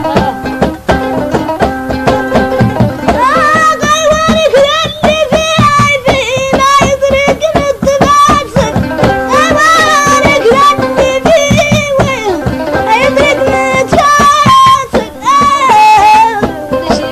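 Mauritanian traditional music: a steady drum beat and plucked string instrument, joined about three seconds in by a singer's voice with long, ornamented, bending phrases.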